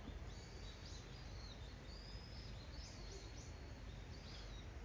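Small birds chirping: a scattering of short, high calls, some sweeping up or down, over a steady low background rumble.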